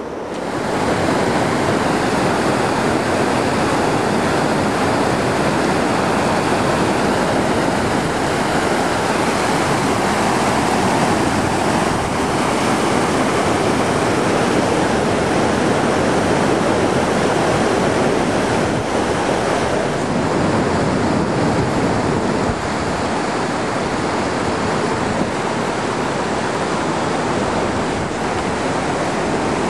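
Steady, loud rush of a fast mountain stream tumbling over rocks.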